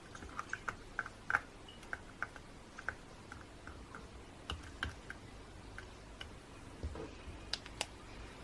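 Metal tweezers tapping and clicking against resin charms on a clear plastic phone case: light, irregular clicks, thickest in the first three seconds and sparser afterwards.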